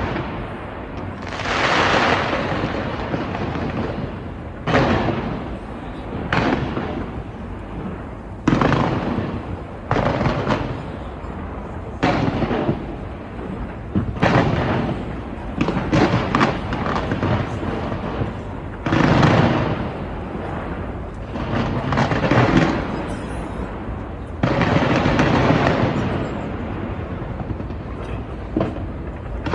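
Aerial fireworks going off in a long series of booms, about a dozen, each fading away over a second or two, with a quick run of smaller bangs and crackles in the middle.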